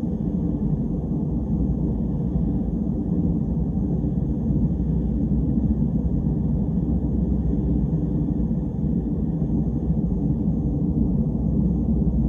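A deep, steady rumble ambience with no distinct events, starting abruptly and holding an even level throughout.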